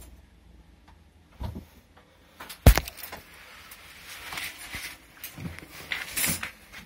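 Rustling and scraping close to a hand-held phone's microphone as a person moves quietly, with one sharp knock about two and a half seconds in.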